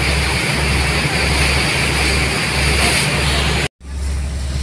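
Wind on the microphone over the steady noise of a moving boat, its engine and the rushing water of its wake. The sound cuts out abruptly about three and a half seconds in, then returns quieter.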